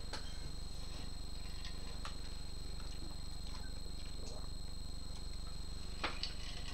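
Quiet room tone: a steady low electrical hum with a faint high whine, broken by a few faint clicks and knocks as a cup with a straw is picked up and sipped from.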